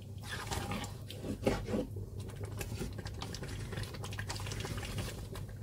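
Thick rendang simmering in a metal pot while being stirred: a run of small wet pops, plops and crackles from the thick curry as it bubbles and is turned, over a steady low hum. The curry has reduced to the thick, dark, nearly cooked stage.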